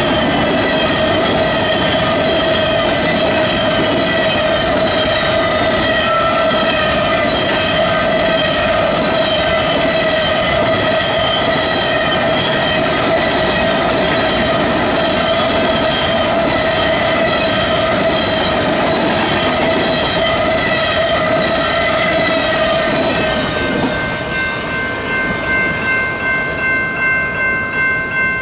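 Covered hopper cars of a grain train rolling past over a grade crossing, wheels clacking and a steady tone running under it. About 24 s in the last car clears and the crossing bell is left ringing, about two strokes a second.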